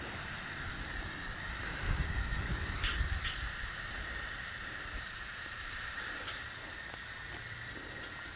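Garden hose spray nozzle spraying water in a steady hiss, with a few low rumbling bumps about two to three and a half seconds in.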